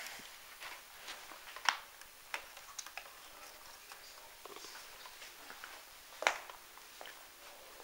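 Handling noise from a camera being picked up and moved: scattered light clicks and knocks, the sharpest about one and a half seconds in and again about six seconds in.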